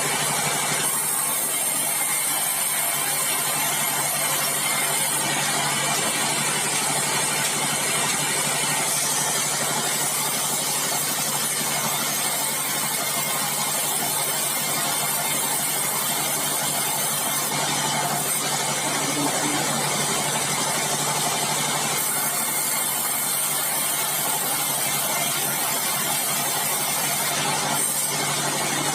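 Sawmill bandsaw machinery running steadily, a continuous mechanical noise with a steady low hum and no breaks.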